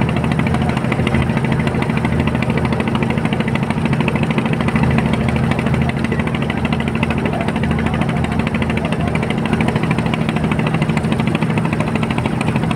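Boat diesel engine running steadily at a constant speed, a low drone with a fast, even knocking rhythm.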